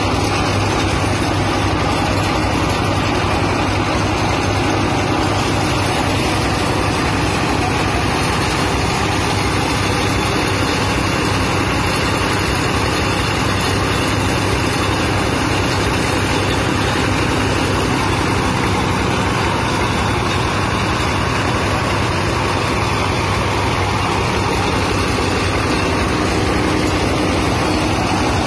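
Peanut-shell grinding mill running steadily under a small stationary engine, with the loud continuous rush and rattle of dry peanut shells being ground.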